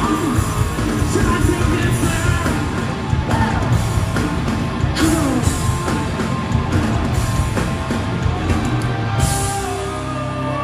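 Live rock band (electric guitars, bass and drums) playing the closing section of a song, with singing over it. About nine seconds in the drumming stops and the last notes ring on.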